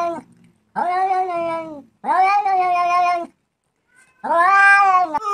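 Domestic cat giving three long, drawn-out meows, each about a second long, with short pauses between them.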